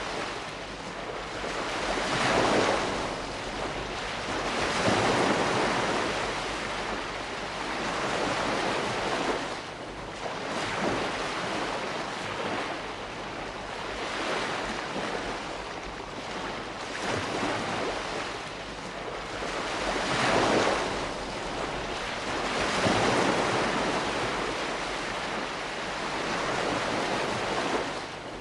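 Calm sea washing gently onto the shore, small waves rising and falling away every few seconds in a steady hiss.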